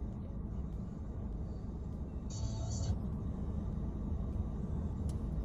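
Steady low rumble of a car, heard from inside the cabin, with a brief higher-pitched sound about two seconds in.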